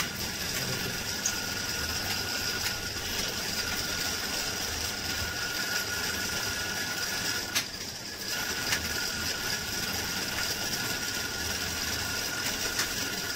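Aloo kachori deep-frying in hot oil in a metal kadhai: steady sizzling and crackling of the bubbling oil, with a single click about seven and a half seconds in.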